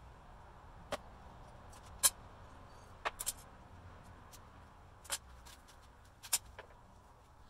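A series of sharp clicks and taps, about seven, the loudest about two seconds in, over a faint steady hiss: small hard objects being handled and set down.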